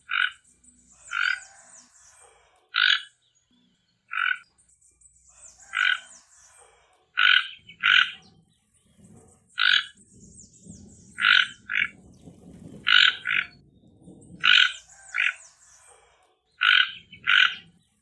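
Toco toucan giving its harsh croaking call: short rasping notes, about one a second and often in pairs. Faint high-pitched chirping runs behind them.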